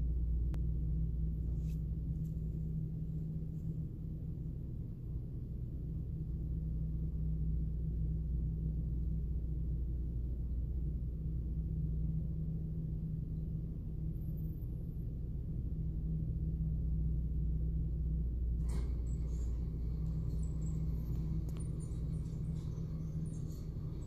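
Steady low machinery hum, with a few faint clicks near the end.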